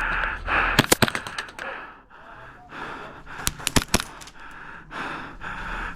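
Heavy, gasping breathing of a player on the move, broken by a quick cluster of sharp airsoft shots about a second in and a few more near the four-second mark.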